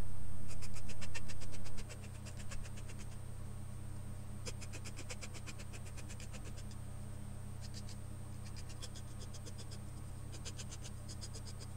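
Small metal file on a multi-tool rasping against the bottom edge of a wood-filament 3D print to clean off brim residue. It goes in quick back-and-forth strokes, several a second, in about five short runs with brief pauses between them.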